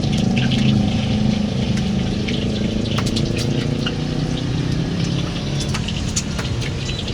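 Nasi goreng (fried rice) sizzling in a hot wok, a steady hiss full of scattered crackles, over a continuous low hum.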